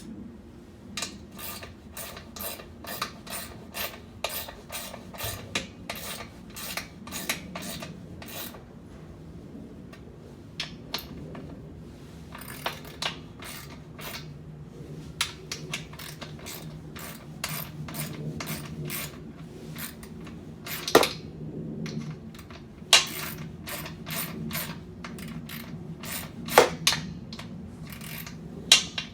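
Metal clicking from hand tools being worked, in runs of about three clicks a second, like a ratchet. A few louder single metal knocks come in the second half, over a faint low hum.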